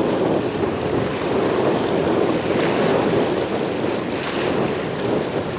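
Steady rushing roar of an Airbus A380's engines on its takeoff and climb-out, heard from a distance, with wind buffeting the microphone.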